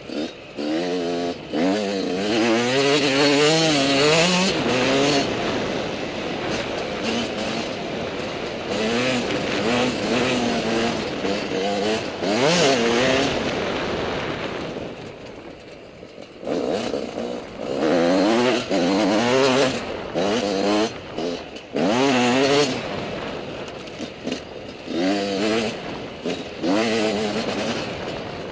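Motocross dirt bike engine revving hard, its pitch rising and falling again and again as the throttle is opened and closed. It eases off briefly about fifteen seconds in, then picks up again.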